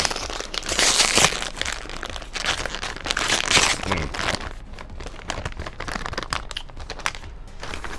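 Plastic snack-chip bag crinkling and rustling as it is handled and opened, loudest about a second in and again around three seconds in, then lighter crackles.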